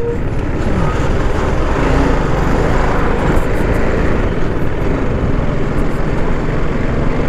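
Sport motorcycle riding along at speed: the engine running under way beneath steady wind and road noise, with a slight rise in the engine note about a second in.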